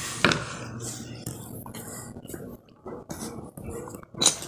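Irregular knocks, clicks and rustling as the phone is handled and swung about, with a sharp knock just after the start and another near the end.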